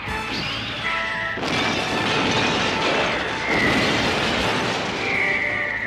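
Cartoon explosion sound effect over background music: music at first, then about a second and a half in a sudden loud blast that rumbles on, with a high whistling tone near the end.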